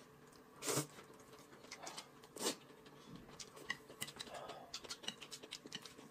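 Eating noises at a table: two short slurps of noodles, about a second apart, amid soft chewing and small chopstick clicks.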